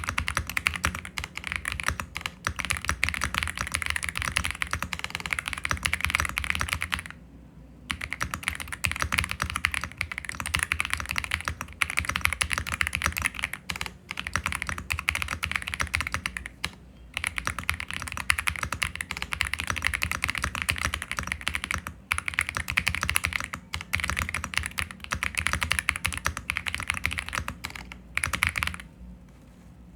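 Fast typing on a Royal Kludge R65 mechanical keyboard with Chartreuse switches: a dense, steady clatter of keystrokes. It breaks off briefly about seven and seventeen seconds in and stops near the end.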